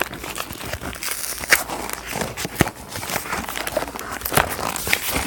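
A LEGO set's cardboard box being opened by hand and its contents handled: scattered rustling, crinkling and small knocks of cardboard and plastic parts bags.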